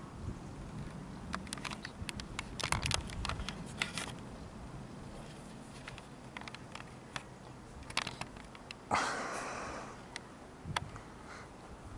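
Handling noise from a handheld camera: scattered sharp clicks and light taps, thickest in the first four seconds, with a short rushing noise about nine seconds in.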